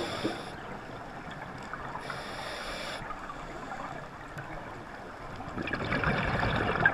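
Underwater breathing of a scuba diver through a regulator: a hissing inhalation about two seconds in, then a louder gush of exhaled bubbles near the end.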